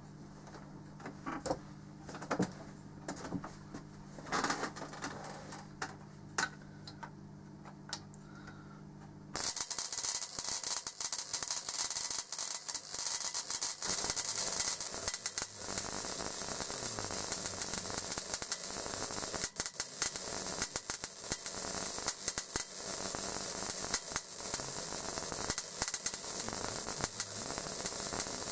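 High-voltage crackling and hissing from a Leyden jar capacitor bank charged by a 6.3 kV neon-sign transformer. A low hum with a few faint clicks gives way, about nine seconds in, to a sudden, much louder dense sizzle of electrical discharge that keeps on.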